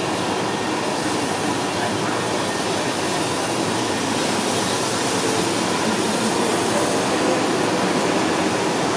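1930s NSW Railways heritage passenger carriages rolling past along a platform: a steady, even noise of steel wheels running on the rails.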